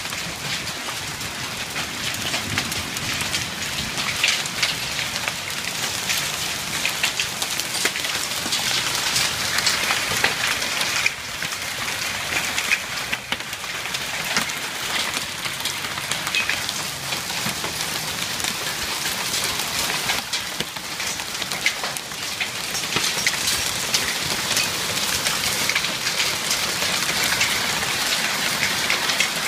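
Hailstones and heavy rain pelting down in a dense, steady patter, with many sharp ticks of stones striking.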